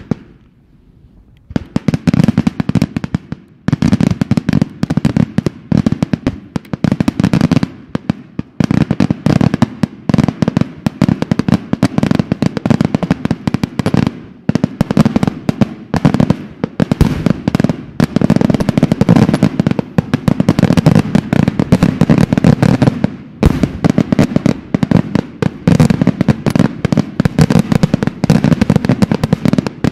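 Daytime aerial fireworks bursting overhead. After a short lull, a dense barrage of rapid bangs and crackling reports runs almost without pause, broken only by a few brief gaps.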